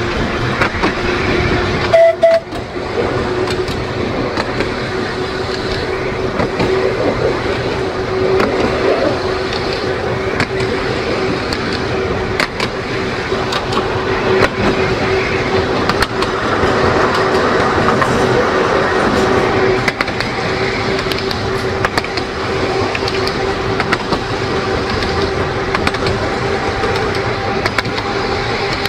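Narrow-gauge electric tramcar running on the line, heard from aboard: a steady whine with running noise and occasional clicks from the wheels on the track. A brief louder tone sounds about two seconds in.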